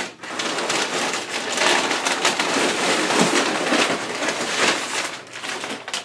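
Brown kraft packing paper crinkling and rustling as it is crumpled and pulled out of a shipping box, a dense crackly rustle that eases off near the end.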